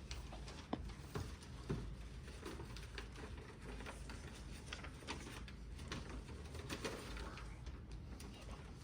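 Irregular light clicks, taps and rustles from objects being handled, over a low steady hum; the sharpest knocks come in the first two seconds.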